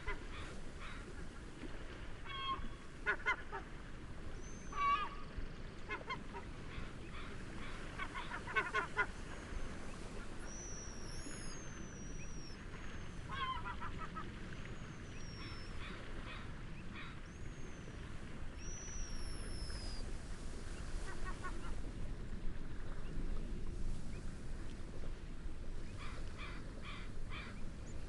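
Waterbirds calling in short honking, cackling bursts several times, with a series of thin, high whistled bird calls in the middle stretch. A steady rush of wind and gentle waves runs underneath.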